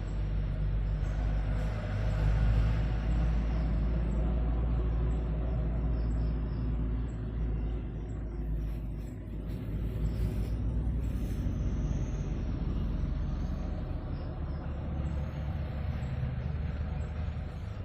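Heavy road vehicles passing close by, a low engine and tyre rumble that swells about two seconds in and again around ten seconds.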